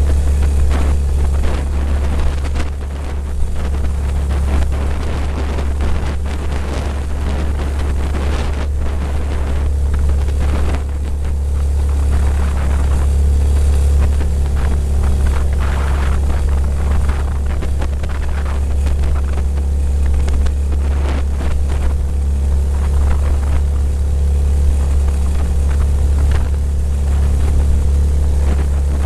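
Mokai jet-drive motorized kayak's engine running steadily at cruising speed, a constant low hum, over the rush of water and wind noise on the microphone.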